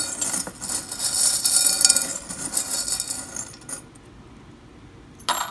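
Small metal charms jingling and clinking against each other and the glass as a hand stirs through them in a glass jar, for about three and a half seconds, then quieter rummaging with a single sharp clink near the end.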